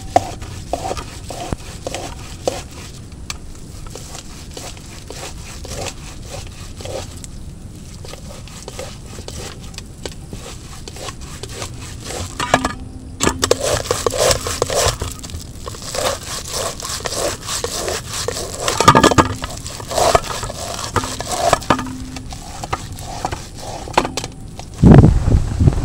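Ripe palmyra palm fruit pulp scraped by hand down a stainless steel box grater into a steel bowl: a run of wet rasping strokes, fainter at first and heavier and closer together from about halfway. A loud low rumble comes in near the end.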